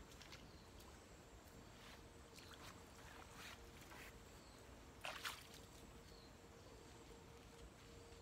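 Near silence with a faint steady hum, broken by a few soft rustles and scuffs of a person moving close by, the loudest about five seconds in.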